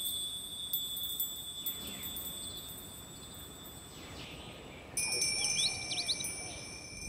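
High, sustained chime tones ringing steadily, switching to a new, lower set of ringing tones about five seconds in. A few short bird chirps come just after the change.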